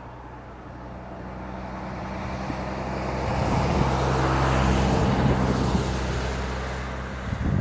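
Airbus A319 twin-jet on final approach, its engine noise a low steady hum under a broad rush that grows louder as the airliner comes closer, loudest about five seconds in, then easing off slightly.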